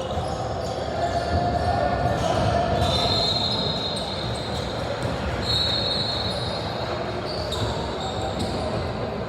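Basketball game in a gym: the ball bouncing on the court amid echoing voices in the hall, with two high squeaks partway through.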